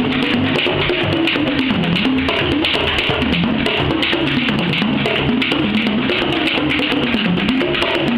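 Two bodhráns played together in a fast, dense rhythm of hand and tipper strokes, the drum tone bending up and down in pitch as the players press on the skins from behind.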